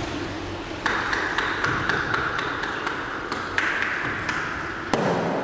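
Sharp wet taps and knocks ringing off the marble of a Turkish bath. Louder hits come about a second in, past halfway and near the end, each trailing a lingering echo.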